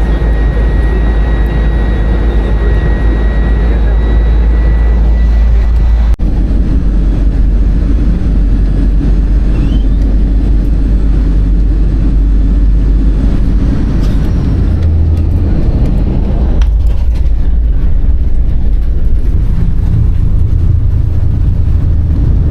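Loud, steady low rumble of a moving vehicle, with abrupt changes about six and seventeen seconds in where the sound cuts from one shot to the next.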